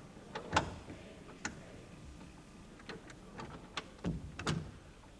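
Scattered knocks and bumps of people moving about in a church during the service, about eight irregular knocks, the sharpest about half a second in.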